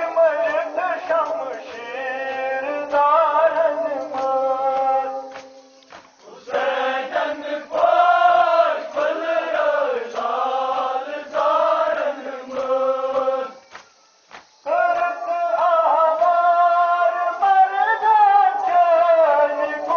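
Group of mourners chanting a Kashmiri nohay (Muharram lament) in unison, mostly male voices in long sung phrases, with sharp regular slaps running through it, in keeping with matam chest-beating. The chanting drops away briefly about six seconds in and stops for about a second around fourteen seconds in before resuming.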